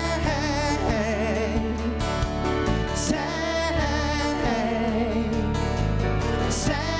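Live band music: a woman singing a slow melody with vibrato into a microphone, over electric guitar and a steady low band accompaniment.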